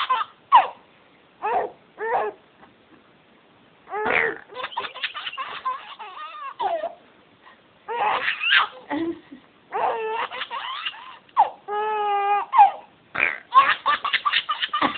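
Baby boy laughing in repeated bursts, with short pauses between them.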